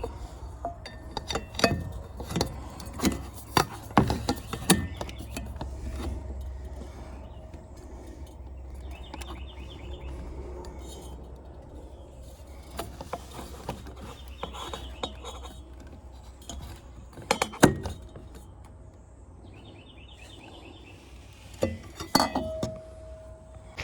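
Scattered sharp clinks and knocks of small metal parts and tools being handled, with a few brief rattles, over a steady low hum.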